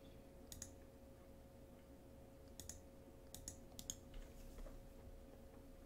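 Faint computer mouse clicks, a few scattered ones and some in quick pairs, over a faint steady hum.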